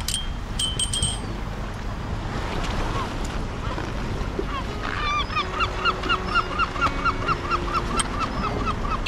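A bird honking in a rapid run of short calls, about four a second, starting about five seconds in.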